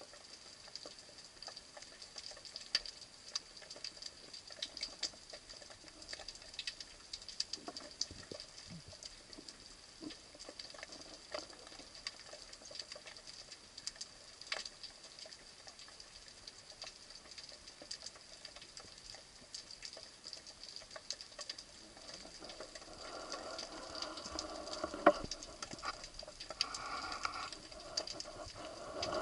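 Underwater ambience heard through a camera housing: a constant crackle of small, irregular clicks over a faint steady high whine. From about two-thirds of the way in, a louder hum with several pitches rises, with one sharp knock.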